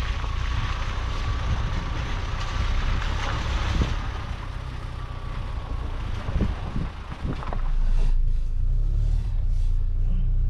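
A car driving: a steady low rumble with a faint thin whine and a few knocks, and about seven and a half seconds in the rumble gets louder and deeper.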